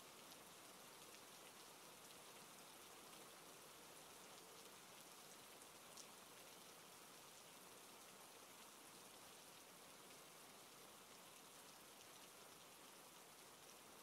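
Faint, steady rain: an even hiss with scattered small drop ticks, one a little louder about six seconds in.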